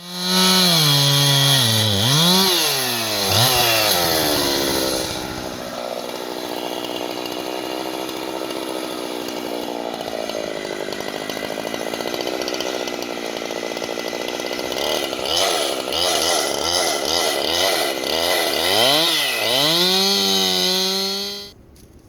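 Two-stroke chainsaw engine revving, its pitch dropping and rising several times, then held at a steady high speed for about ten seconds before revving up and down again. It cuts off abruptly near the end.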